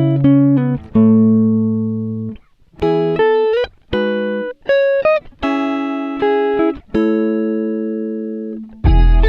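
Background music: a plucked guitar melody of single notes and chords, each ringing out and fading. Near the end a fuller, louder passage with a deep bass comes in.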